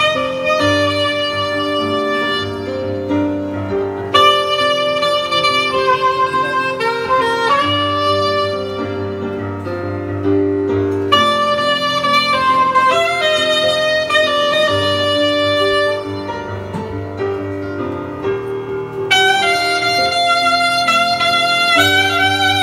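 Curved soprano saxophone playing a slow melody in phrases of held notes, with short breaks between phrases, over keyboard piano accompaniment with a steady bass line and chords.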